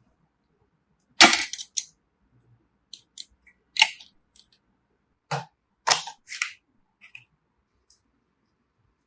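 Sharp clicks and clacks of computer parts being handled and fitted during a PC build, a string of separate irregular knocks with the loudest about a second in.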